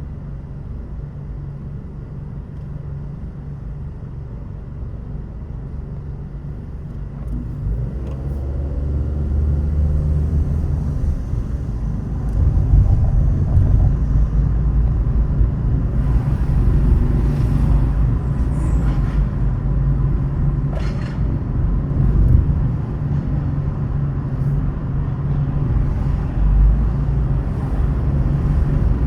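A car driving, with a steady low rumble of road and engine noise that grows louder from about a quarter of the way in.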